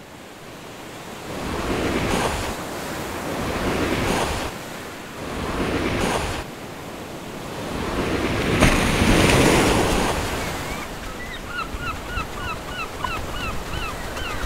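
Ocean surf: waves surging in one after another in several swells, the biggest about eight to nine seconds in. From about eleven seconds a bird calls over the surf in a quick repeated series of short chirps.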